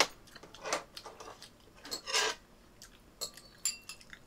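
Chopsticks clinking lightly against a ceramic bowl and a steel pot during a meal of noodles, with a few sharp clinks that ring briefly about three seconds in.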